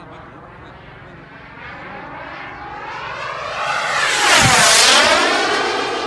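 Radio-controlled model jet making a fast low pass: the sound of its motor and rushing air swells over about three seconds, peaks about four and a half seconds in with a sweeping change in tone as it goes by, then begins to fade.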